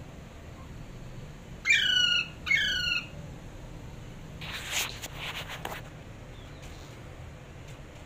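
Caged Alexandrine parakeet giving two loud, harsh squawks about two seconds in, each falling in pitch. A second or so later comes a scratchy rustle of wings flapping against the cage wire.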